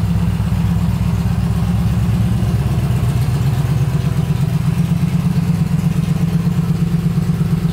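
Yamaha XVS950's air-cooled V-twin engine idling steadily, a low, even pulse.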